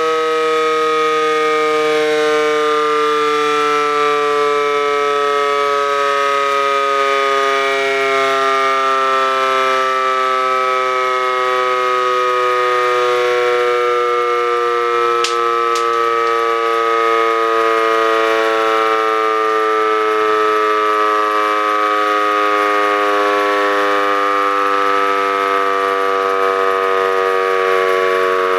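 Federal Signal C5 electromechanical siren sounding a loud, steady wail whose pitch sinks slowly and evenly throughout.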